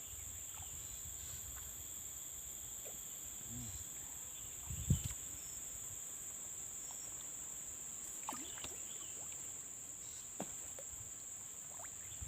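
Steady high-pitched drone of insects, such as crickets or cicadas, chirring without a break. A single low thump comes about five seconds in, and a few faint clicks follow later.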